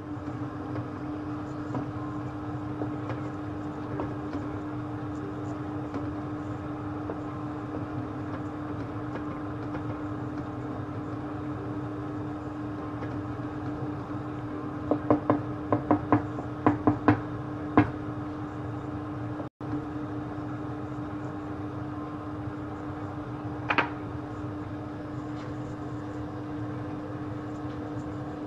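A steady kitchen appliance hum with one constant tone. A quick run of about eight sharp knocks comes about halfway through, and there is one more knock later.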